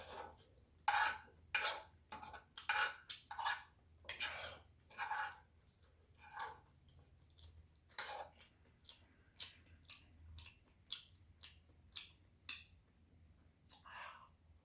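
Close-miked chewing of spicy shrimp tteokbokki (rice cakes and shrimp): irregular wet mouth sounds and smacks, louder and denser in the first half, then fainter, sparser clicks toward the end.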